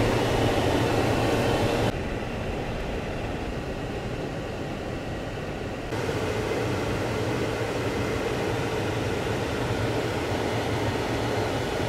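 Steady road and engine noise inside a moving car's cabin, a continuous rumble with a low hum. About two seconds in it drops abruptly to a duller, quieter sound, then steps back up about six seconds in.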